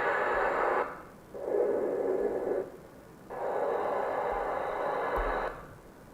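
Wind sound effect played back in three stretches of even rushing noise, each one to two seconds long, starting and stopping abruptly as each preview begins and ends.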